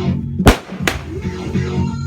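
Music playing with two sharp firework bangs over it, the louder about half a second in and a second one shortly after.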